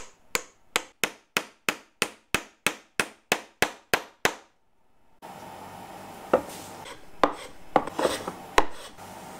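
About fourteen sharp wooden taps, evenly spaced at roughly three a second, as an oak dovetail joint is worked fully home. After a short silence come a few irregular knocks and a hand rubbing over planed oak.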